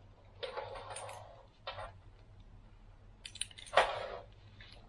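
Handling noise of a nylon ankle strap and resistance-band attachments: short fabric rustles, then a few small metal clicks of a carabiner clip a little after three seconds, followed by a louder rustling scrape.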